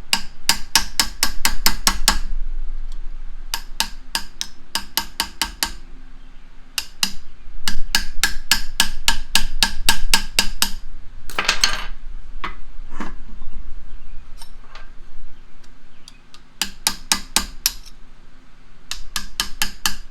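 Hammer tapping a steel punch against the threaded collar of a vintage Reed bench vise to drive it round and unscrew it, the metal ringing at each strike. The strikes come in quick runs of about five a second, with short pauses between runs.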